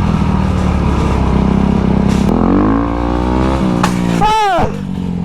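Vehicle engine running steadily, revving up about two and a half seconds in and easing back about a second later. Near the end comes a brief high-pitched squeal that rises and falls.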